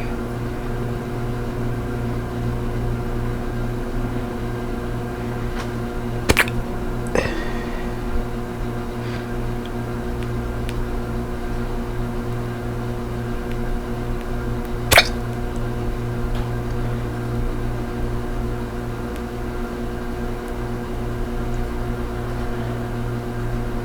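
A woman's natural hiccups: two sharp single hiccups, about six and fifteen seconds in, the second one louder, with a smaller catch shortly after the first. A steady low hum runs underneath.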